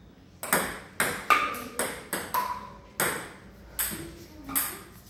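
Table tennis ball struck by bats and bouncing on the table in a rally: about eight sharp clicks at uneven intervals of roughly half a second, a few of them followed by a brief ring.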